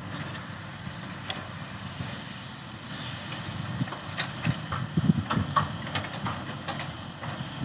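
Caterpillar 320C hydraulic excavator's diesel engine running steadily, with sharp metal clanks and knocks from its working gear starting about three seconds in and becoming louder.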